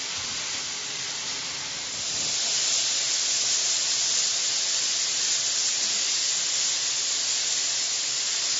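Steady hissing rush of noise, most of it high-pitched, growing louder about two seconds in.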